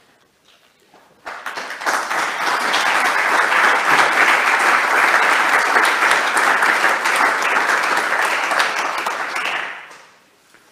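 Audience applauding. The clapping starts about a second in, holds steady and dies away near the end.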